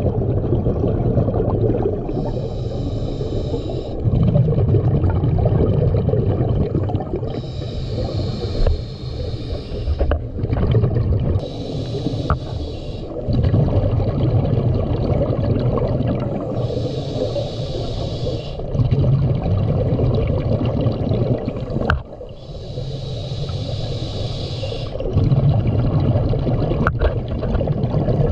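Scuba diver breathing through a regulator underwater: a hiss on each inhale, about every five seconds, then bubbling and rumbling on each exhale, with a few sharp clicks.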